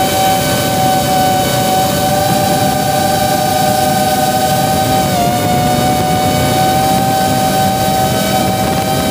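3-inch CineStyle FPV quadcopter's motors and propellers whining steadily in flight, picked up by its onboard camera along with a rush of air. The pitch dips slightly about five seconds in as the throttle eases.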